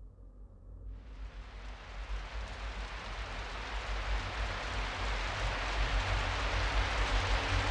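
Steady rain-like hiss fading in about a second in and growing gradually louder, with a low rumble underneath.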